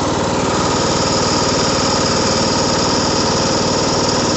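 Riding lawn mower's small petrol engine running steadily, a rapid even chug, with a high steady whine joining about half a second in.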